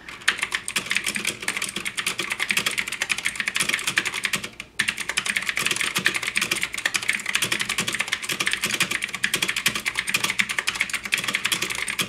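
Fast typing on an Ajazz AK33 mechanical keyboard with clicky blue switches: a rapid, continuous clatter of crisp keystrokes, with a brief pause about four and a half seconds in.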